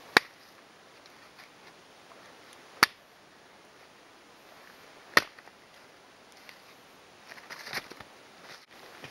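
Small axe splitting short lengths of dry deadwood into kindling: three sharp chopping strikes about two and a half seconds apart, then a few lighter knocks and clatter of split pieces near the end.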